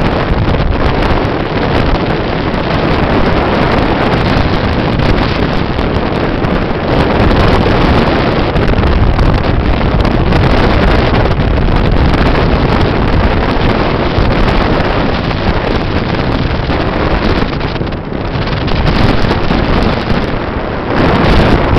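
Heavy wind buffeting the microphone, mixed with the rush of the bow wave and spray from a K130 corvette running at about 26 knots. The noise is steady and loud and eases briefly twice near the end.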